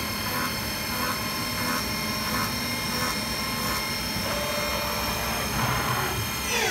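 CNC milling machine running: a steady high-pitched whine made of several tones, over a soft pulsing beat about three times every two seconds that fades out about four seconds in. Near the end a tone falls quickly in pitch.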